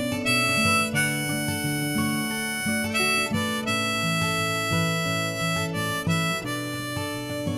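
Instrumental break in a country-folk song: a harmonica plays a melody of held notes over acoustic guitar.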